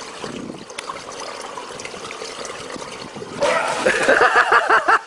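Water trickling, then a rapid run of short high-pitched calls or laughter, several a second, starting near the end.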